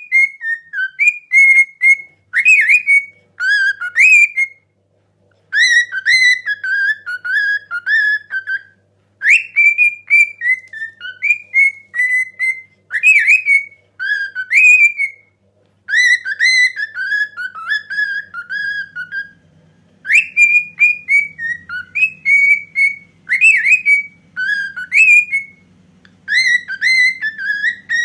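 Cockatiel whistling the melody of a Turkish Mehter march in phrases of quick, sliding high notes, with short pauses between the phrases.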